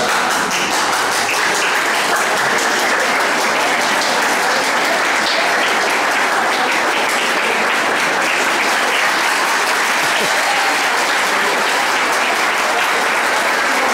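A large seated audience applauding, with dense, steady clapping.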